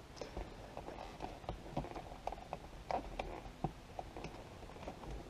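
Irregular faint clicks and taps of hands handling a plastic rear-view mirror and its windshield mount.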